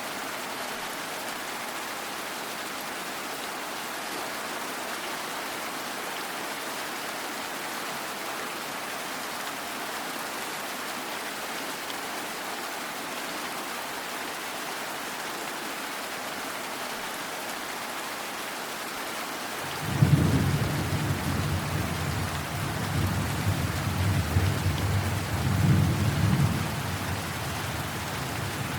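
Steady rain falling as an even hiss. About twenty seconds in, a clap of thunder breaks suddenly and rolls on as a deep rumble, swelling again a few seconds later before easing off near the end.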